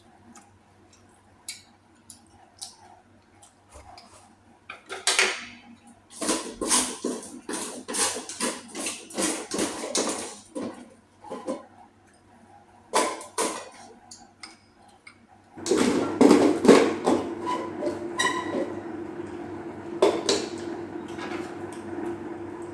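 Cutlery clinking and scraping against bowls and plates during a meal. It starts as scattered clicks, turns into a dense clatter for several seconds, and settles into a steadier scraping noise near the end.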